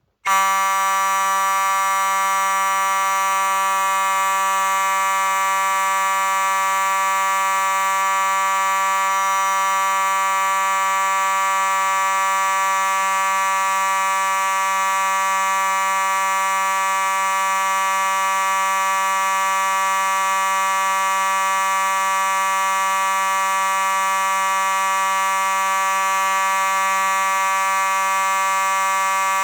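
Simplex 4903-9221 mechanical (electromechanical) fire alarm horn sounding continuously, a loud, steady buzzing horn tone. It switches on abruptly just after the start and holds without a break.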